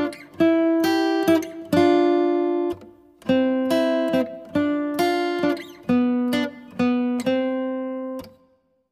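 Outro music: an acoustic guitar strumming a run of chords, roughly one a second, with the last chord dying away shortly before the end.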